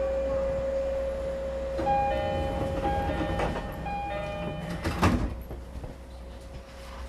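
JR East E231 series train's door-closing chime sounding in repeated short tones, then the sliding passenger doors shutting with one loud knock about five seconds in.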